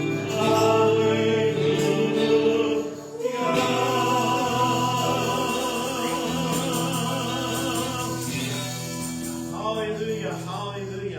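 Gospel-style worship song: choir-like voices holding long notes with vibrato over instrumental backing, with a brief break about three seconds in.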